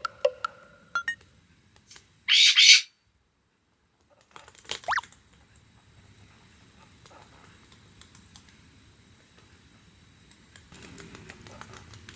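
Cockatiels: a loud, harsh squawk lasting about half a second, about two seconds in, and a short rising chirp a couple of seconds later. Light clicking of their claws tapping as they walk comes at the start and again near the end.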